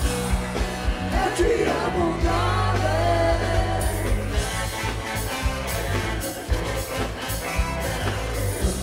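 Live soul-funk band playing: a singer's voice over a held bass line and drum hits.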